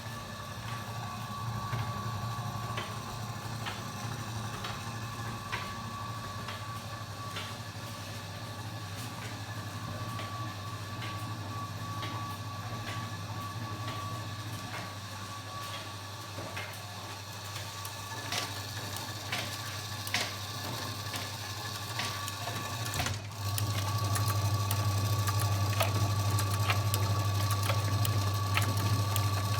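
Washing machine running: a steady motor hum with a thin whine above it and light clicks and rattles, suddenly getting louder about two-thirds of the way through.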